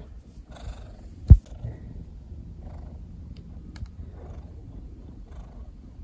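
Siamese cat purring as its head is stroked, a low steady rumble, with one sharp thump just over a second in.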